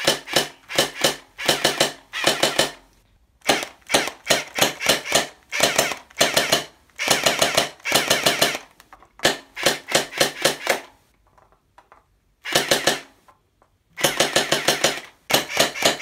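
Battery-powered toy Desert Eagle gel ball blaster (Hydro-Blaster) with a suppressor fitted, firing on full auto in short bursts of rapid clicking shots, about eight a second. Bursts last half a second to a second with brief gaps, and there are longer pauses about three seconds in and about eleven seconds in.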